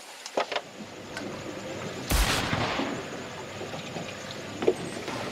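Steady wind and water noise at sea, with one loud, sharp thump about two seconds in.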